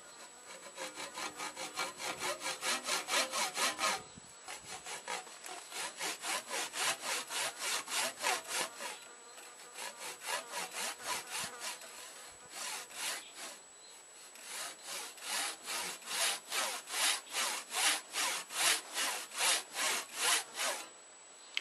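Hand saw cutting in fast back-and-forth strokes, about four a second. The strokes break off briefly about four seconds in, go lighter for a while in the middle, and stop just before the end.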